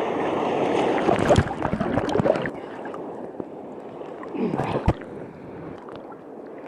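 Seawater sloshing and churning around a camera held in the surf, loudest in the first couple of seconds and then easing, with a short gurgle about five seconds in.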